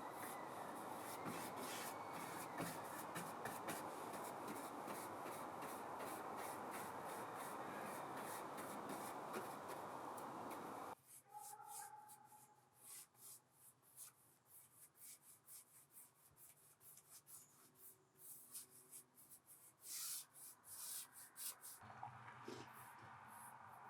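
Steady rubbing and handling noise with many small clicks, which cuts off abruptly about halfway through, leaving a quieter stretch of scattered light taps and clicks.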